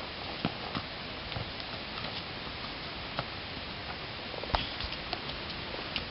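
Horse walking on leaf-covered ground, its hooves giving scattered soft knocks, the sharpest about four and a half seconds in, over a steady background hiss.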